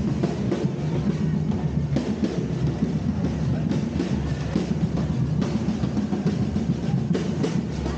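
Drum band playing a steady, pounding beat, with a few sharp bangs from fireworks.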